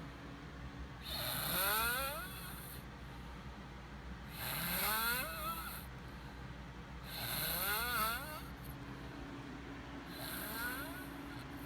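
A boy snoring: four snores about three seconds apart, each a noisy breath with a pitched tone that rises, over a faint steady hum.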